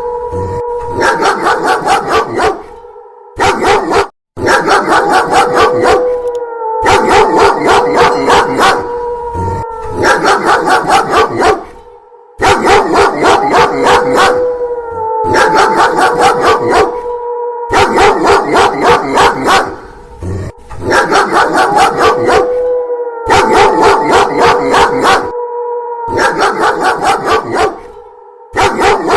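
Dog barking in quick runs of several barks a second over a long wolf howl held at one pitch that dips down at its ends. The barking comes in bursts a few seconds long broken by brief gaps, repeating over and over.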